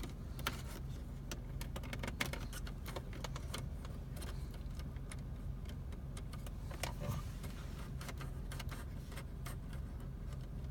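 Small plastic clicks and taps, irregular and scattered, as a VentTabs clip is worked onto a car's air-vent louver, over a steady low hum.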